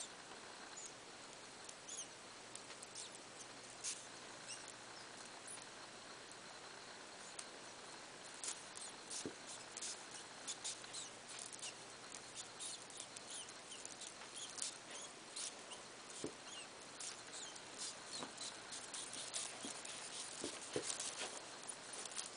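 Faint quick clicks, ticks and snuffles from a pair of African pygmy hedgehogs mating, becoming more frequent about a third of the way in, over a steady hiss.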